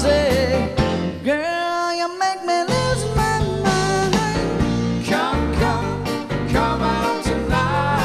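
Background music: a band playing a song, with a lead voice singing over guitar and a steady beat.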